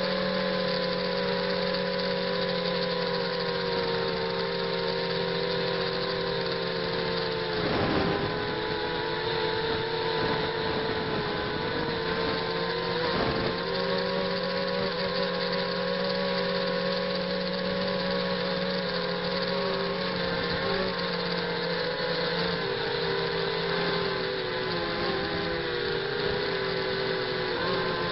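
ZMR 250 quadcopter's brushless motors and propellers heard through its onboard camera: a steady multi-tone whine whose pitch wavers slightly as the throttle changes, over a low steady hum. Two brief louder rushes of noise come about 8 and 13 seconds in.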